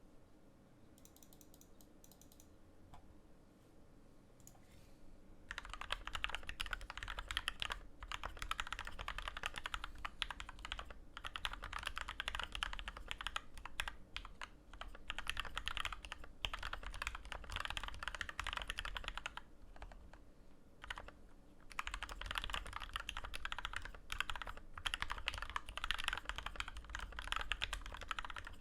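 Keychron K2 mechanical keyboard with Gateron Red linear switches lubed and filmed with Krytox 205g0, lubed stabilisers, case foam and PBT keycaps, being typed on quickly and continuously. The typing starts about five seconds in and breaks off briefly about two-thirds of the way through before resuming.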